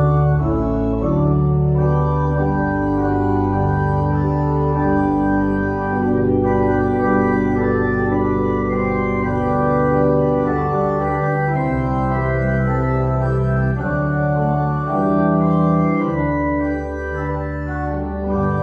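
Church organ playing slow, sustained chords over a deep bass line, the harmony changing every second or two.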